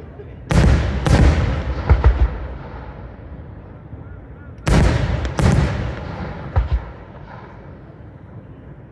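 Aerial fireworks shells bursting with sharp bangs, each trailing off in a rumbling echo: two big bangs near the start followed by smaller pops, then another pair of bangs about halfway and two quick short pops after them.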